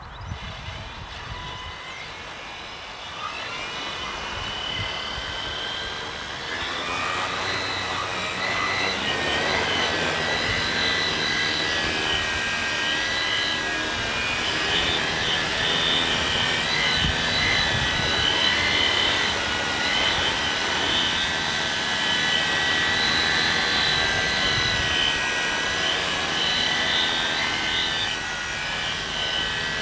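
Homemade tricopter's three brushless motors and propellers spinning up from rest and then running steadily in flight, a high multi-toned whine. The pitches rise over the first several seconds, then hold and waver as the craft hovers.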